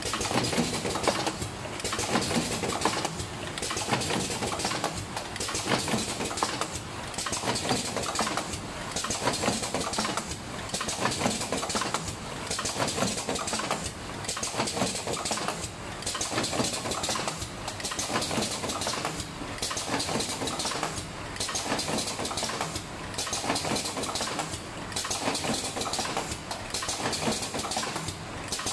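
Automatic cartoning machine running: a continuous mechanical clatter that swells and dips in a regular cycle, about once every two seconds, as the machine indexes through its packing stroke.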